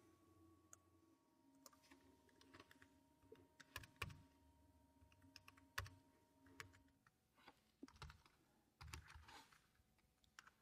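Faint computer keyboard typing: scattered, irregular keystroke clicks, with small clusters around four, six and nine seconds in.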